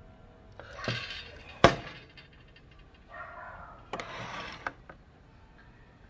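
Handling noise from a wooden clock case: rubbing and scraping, with one sharp knock about a second and a half in and two lighter clicks later.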